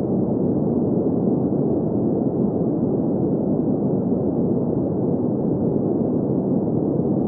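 Green noise for sleep: a steady, unchanging, muffled hiss with no highs.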